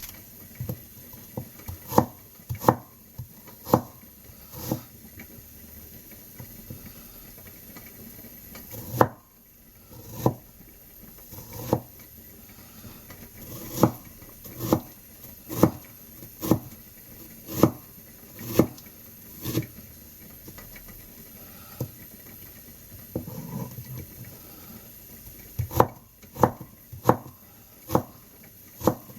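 Kitchen knife cutting a peeled Korean pear on a cutting board: sharp knocks of the blade striking the board, in runs of about one a second with a couple of pauses.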